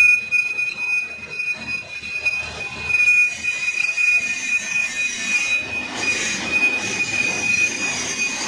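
Big lathe turning a large steel roller with the cutting tool taking a cut along its surface. A steady high-pitched squeal runs over the machine's running noise.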